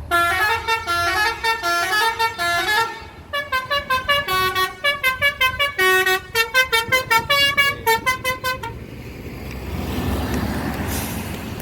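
Basuri multi-tone musical air horn on an ALS bus playing a melody of short stepped notes in two phrases, the second with quick repeated notes. It stops about nine seconds in, leaving a low vehicle rumble.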